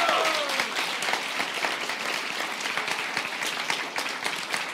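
Large crowd applauding, with a few shouted cheers that fade out just after the start.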